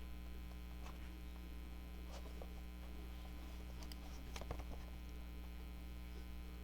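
Steady low electrical hum, with a few faint, scattered clicks and taps of paper and cardstock being handled, the most a little past halfway.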